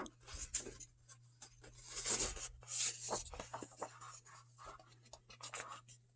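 Pages of a paper rulebook being leafed through by hand: irregular soft rustles and swishes, a little louder about two and three seconds in.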